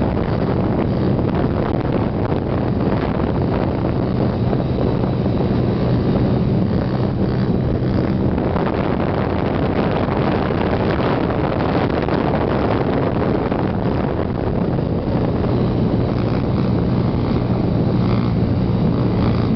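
Small dirt bike's engine running steadily, held at revs through long wheelies, with wind noise on the microphone.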